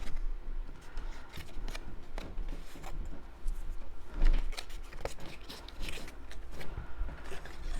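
Cardstock pieces being handled on a work table: scattered paper rustles and light taps, with one louder knock about four seconds in.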